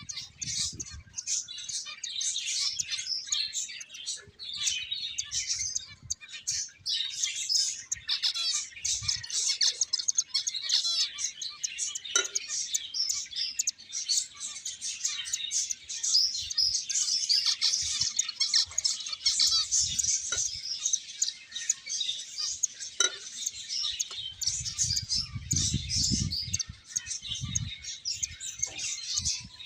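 A group of finches chirping busily, many short overlapping calls with no pause. A few low thumps come near the end.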